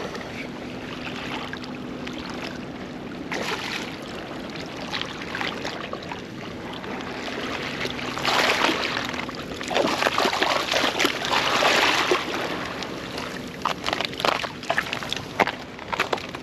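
Water splashing and sloshing as a hooked flathead is brought in and landed, louder in two surges past the middle, followed by a run of short knocks near the end.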